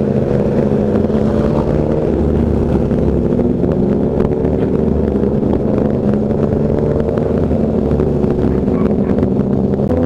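Motorcycle engine running steadily while riding, its hum holding a near-constant pitch.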